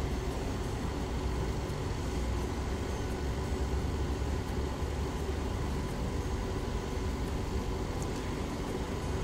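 Battered banana fritters frying in hot oil in a pan: a steady sizzling hiss over a constant low rumble.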